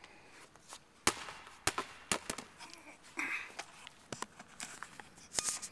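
Handling noise of a camera phone being moved and set down on the floor: irregular sharp clicks and knocks against the device, with a brief rustle about three seconds in.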